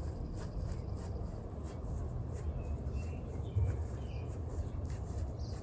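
Outdoor garden ambience: a steady low rumble with a few faint, short bird chirps.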